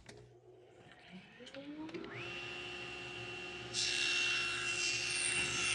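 Table saw motor starting and winding up to speed with a rising whine, then, about three and a half seconds in, the blade biting into a hardwood strip and ripping it lengthwise, a steady hiss over the motor's hum. The board being cut is a profiled tambour slat being split down the middle into two.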